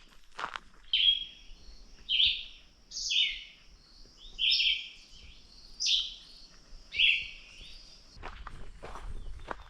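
A songbird singing short, separate phrases, about one a second, seven in all, over a faint, steady high note. Footsteps on the track at the start and again near the end.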